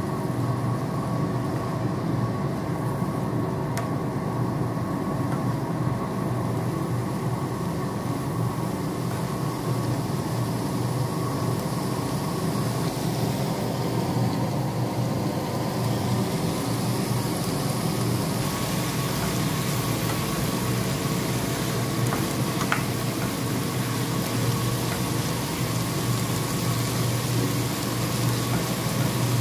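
A steady low mechanical hum with an even rushing noise under it, as cabbage is stir-fried in a pan with a wooden spatula.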